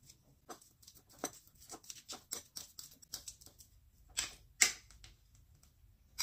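Fork mashing a ripe banana in a ceramic bowl: irregular quick taps and clicks of the metal tines against the bowl, with two louder knocks a little after four seconds in.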